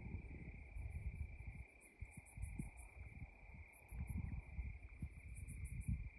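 Night insects chirping in short, rapidly pulsed bursts every two to three seconds, over a steady high-pitched tone and a low, uneven rumble.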